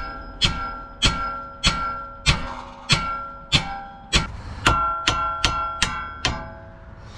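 Steady hammer blows on the steel steering knuckle, each strike ringing like a bell, to knock the tie rod end's tapered stud loose. About a dozen strikes, roughly one every half second or so, coming faster for the last few.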